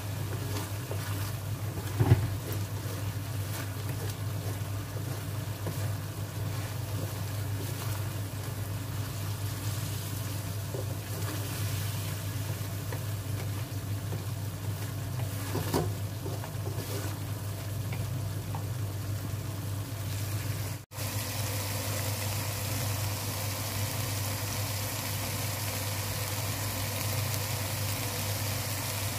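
Thick spicy sauce simmering in a wok as a wooden spatula stirs and scrapes through it, with a sharp knock of the spatula on the pan about two seconds in and another around sixteen seconds. A steady low hum runs underneath.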